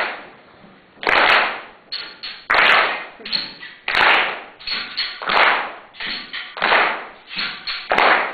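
A rhythmic series of loud, sharp cracks or slaps, one about every 1.3 seconds, with softer taps in between. Each hit rings out in a reverberant hall.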